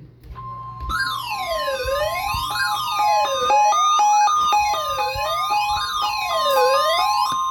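NOAA Weather Radio's steady 1050 Hz warning alarm tone, the alert tone sent ahead of a broadcast alert, starting about half a second in. About a second in, an electronic siren joins it, wailing down and up about once every second and a half.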